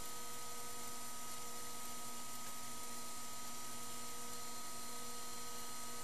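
Steady hum and hiss from running electronic equipment, with several steady whining tones held throughout and no change in the sound.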